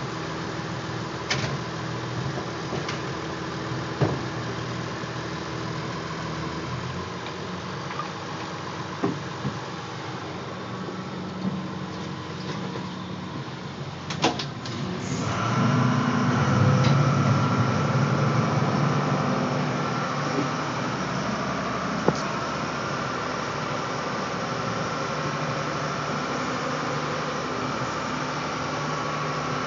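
Lobster boat's engine running steadily, with a few sharp knocks as the wire lobster traps are handled on deck. About halfway the engine noise grows louder and stays that way.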